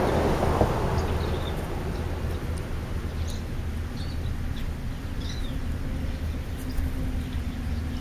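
Outdoor ambience with a steady low hum and a rush of noise that fades over the first second or so, with several faint, short high chirps of small birds scattered through it.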